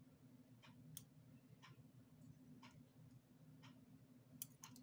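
Near silence with faint ticks about once a second. Near the end, three quick sharp clicks as a metal cutting tool snips the metal connecting strip on an 18650 lithium-ion cell pack.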